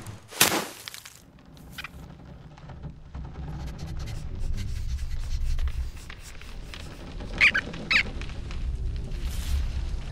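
Cartoon sound effects: a sharp thwack about half a second in, then a low rumble that swells and holds, with two short squeaks about three quarters of the way through.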